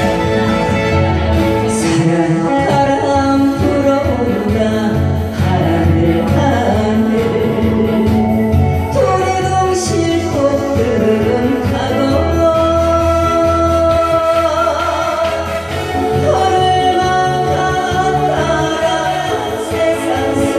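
A woman singing a Korean song with instrumental accompaniment, held notes gliding up and down over a steady bass beat.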